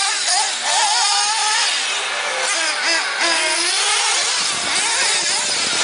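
Radio-controlled buggies racing on a dirt track, their small motors whining high and wavering up and down in pitch as the throttle changes.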